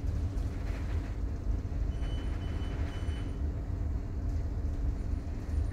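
Steady low rumble of a ship's engines heard inside a ferry's passenger lounge, with a run of about four short high beeps about two seconds in.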